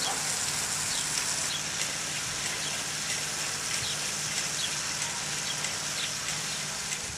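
Outdoor ambience: a steady high hiss with short high chirps scattered through it, a few every second, over a faint low hum.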